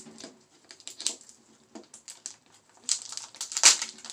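Foil wrappers of several Kinder Joy eggs crinkling and tearing as they are unwrapped at once, a run of irregular sharp crackles, loudest a little before the end.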